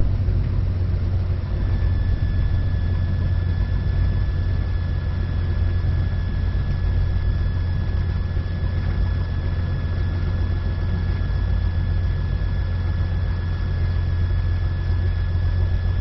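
Cessna 182 Skylane's piston engine running at low power after landing: a steady low drone. A thin, steady high whine joins it about a second and a half in.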